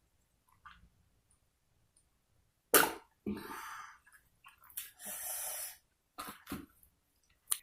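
A person lets out a sudden loud cough, or splutter, about three seconds in. Several heavy breathy exhalations and a few more short coughs follow.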